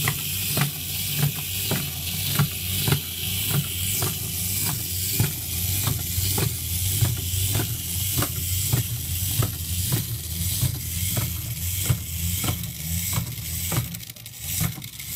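A Meccano walking horse powered by a pre-war clockwork motor, running with a steady whirr and a low hum. Its metal strip legs clatter in a regular rhythm of clicks, about three a second.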